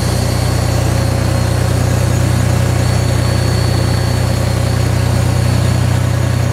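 Ford 3000 three-cylinder tractor engine running steadily at idle.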